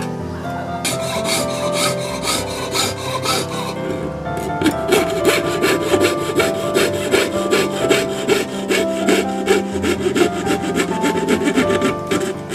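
Fret saw (jeweller's saw) blade cutting thin brass sheet against a wooden block: a fast run of rasping strokes that gets louder about five seconds in. Background music plays underneath.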